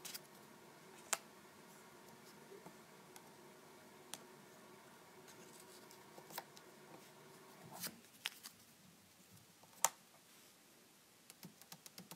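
Fingers handling and sliding paper cutouts on a paper prototype: faint paper rustling with scattered sharp taps, the loudest nearly ten seconds in, and a quick run of small ticks near the end.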